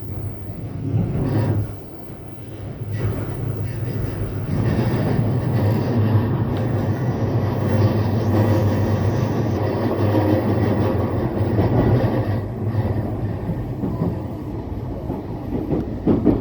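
Yokosuka Line electric train running at speed: a steady rumble of wheels on rail over a constant low motor hum, dipping briefly about two seconds in and then growing fuller.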